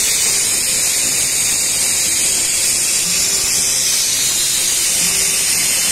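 A loud, steady, high hiss.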